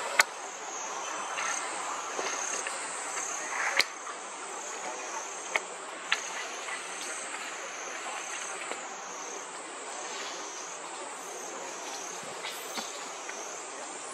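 Insect chorus: a steady, shrill, high drone that wavers up and down about once a second. A few sharp clicks cut through it, the loudest just after the start and about four seconds in.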